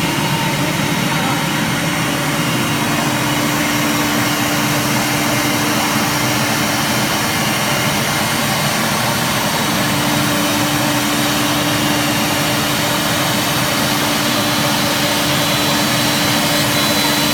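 CNC wood router spindle running and cutting wood: a steady, loud whir with one constant tone under the noise.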